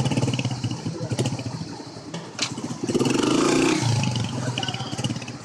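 A motor vehicle's engine running close by, revving up louder for about a second around the middle as it pulls away, with a couple of sharp clicks.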